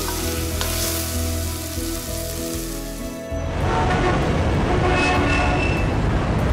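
Meat stir-frying in a wok, sizzling, with music playing. About three seconds in the sizzle gives way to a louder, noisy rumble of city traffic ambience, and the music continues.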